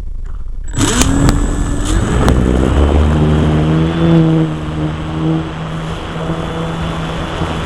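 RC Stick model airplane's motor and propeller running, starting suddenly with a few sharp clicks, the pitch climbing and then holding steady.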